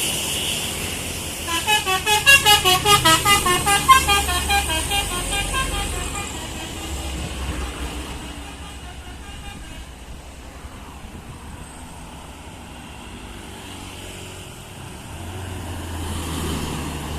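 Bus telolet horn playing a rapid multi-note warbling tune, about five notes a second, starting a second or so in and dying away within a few seconds. The bus's engine rumble then fades as it passes, and another vehicle's engine grows louder near the end.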